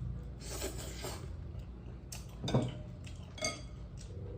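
Tableware being handled during a meal: a short rustle, then a few separate knocks of dishes on a table and one sharp clink with a brief ring about three and a half seconds in.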